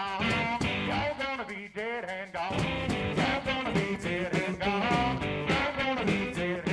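Background rock music with a singing voice and guitar.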